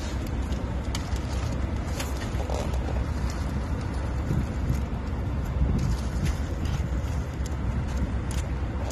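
An idling vehicle engine: a steady low rumble, with a few faint clicks and rattles of tools being rummaged in a soft tool bag.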